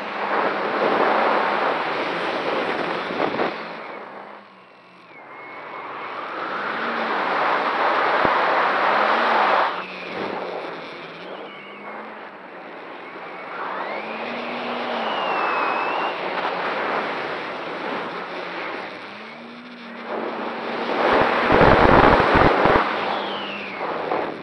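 A 1000mm X-Class FPV racing quadcopter in flight, heard from its onboard camera: motor and 13-inch propeller whine that glides up and down in pitch, with a whistle, under about four swells of rushing air. Wind buffets the microphone near the end.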